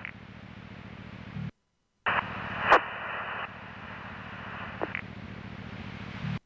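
Police scanner radio static: an open channel hissing over a low hum, with no voice. It drops out briefly about a second and a half in, comes back with a click and a sharp crackle, and cuts off near the end.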